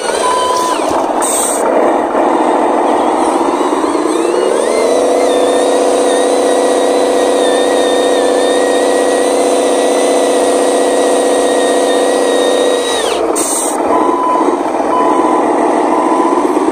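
Radio-controlled model Mitsubishi Fuso dump truck with a simulated diesel truck engine sound. The engine note revs up about four seconds in, holds high, and drops back near thirteen seconds, with the thin whine of the electric drive rising and falling with it. Short air-brake hisses come near the start and just after the revs drop, and an evenly pulsing reversing beep sounds near the end.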